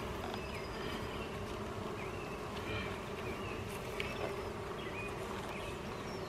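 Steady buzzing hum of a package of Russian honeybees clustered in their shipping box, with a few faint clicks as a screwdriver works at the syrup can and queen cage.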